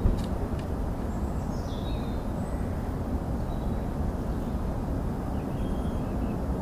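Steady low outdoor rumble with small birds chirping now and then, and two light clicks in the first second.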